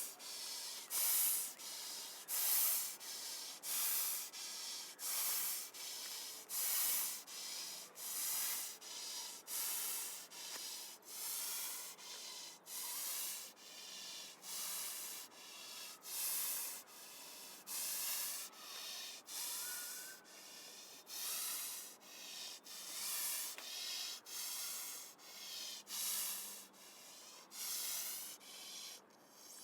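An angry goose hissing at close range, a threat display at the microphone. It is a steady run of short, breathy hisses, a little over one a second.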